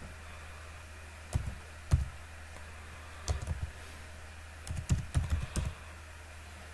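Typing on a computer keyboard: two single keystrokes, then two quick runs of key clicks about three and five seconds in, over a low steady hum.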